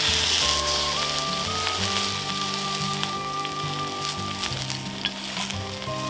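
Beef steak sizzling hard in a hot, oiled iron frying pan. The sizzle starts as the steak is laid in, then carries on as it sears.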